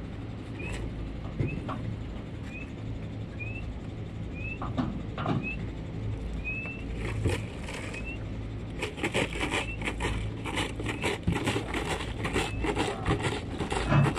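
Cattle hooves knocking and clattering on the loading ramp and trailer floor as Holstein cows are loaded, many overlapping knocks from about halfway in, over a low steady rumble. In the first half a short rising chirp repeats about once a second.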